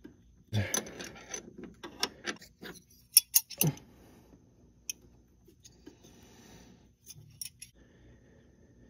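A steel combination wrench clinking and scraping against a brass hose fitting as it is snugged tight. There is a quick run of sharp metal clicks in the first few seconds, loudest just after three seconds, then a few lone clicks later.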